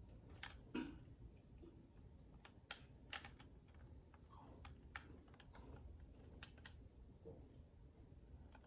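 Faint, irregular clicks and light taps, a dozen or so spread across several seconds, from small hard objects being handled.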